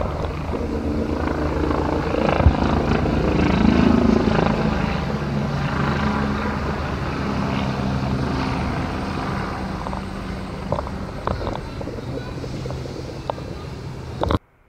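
NYPD police helicopter flying low overhead: a steady rotor and engine sound that swells a few seconds in and then slowly fades. It cuts off abruptly near the end.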